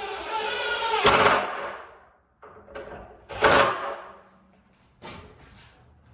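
Wood rubbing and scraping during hand work on a door, no power tools: a long rasping stroke with a squeal over the first two seconds, another loud stroke about 3.5 s in, then a few light knocks.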